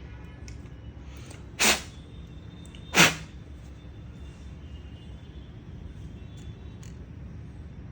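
Two short, loud blasts of air, about a second and a half apart, blown through a laptop's cooling fan and heatsink to drive out dust.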